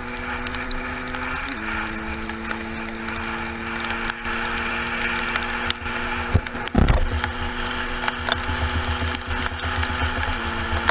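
50cc two-stroke dirt bike engine fitted with a Metrakit exhaust, running at a steady speed under way, its note stepping slightly in pitch twice, over a steady hiss and low rumble. A single thump about seven seconds in.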